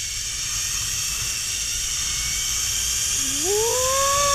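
Zipline trolley pulleys running along the steel cable: a steady high hiss and whir that grows slightly louder, over a low rumble of wind on the microphone. Near the end, the rider gives one long whoop that rises in pitch, is held, and then cuts off.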